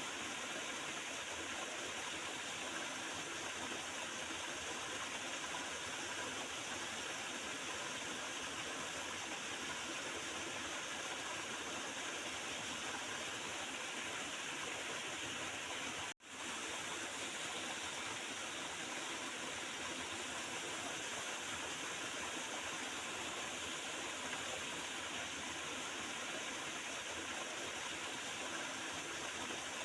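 Water of a small river gurgling and rushing steadily. The sound cuts out for a split second about halfway through, then carries on.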